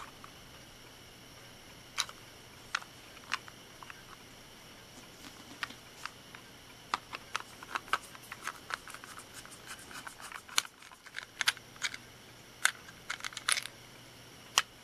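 Small hard plastic clicks and snaps from a Plarail toy train car being handled and taken apart: scattered single clicks, a run of quick small ticks in the middle where a screwdriver works at a screw, then a few sharper snaps near the end as the plastic parts are separated.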